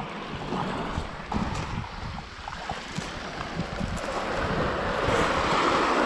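Small waves washing onto a pebble beach, with wind rumbling on the microphone; the wash swells louder near the end.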